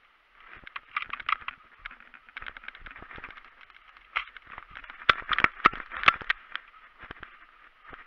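Footsteps crunching through dry grass with the rattle and knock of carried gear, a busy run of irregular clicks that thickens about a second in and again past the middle, sounding thin and tinny.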